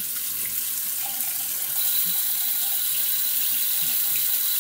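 Bathroom sink tap running steadily, with water splashing as hands rinse shaving lather off a face. A faint high whine joins about two seconds in.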